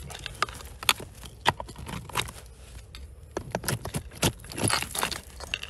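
Loose rocks and gravel clicking, knocking and scraping as they are dug through by hand, in irregular sharp strokes that come thicker a little past halfway.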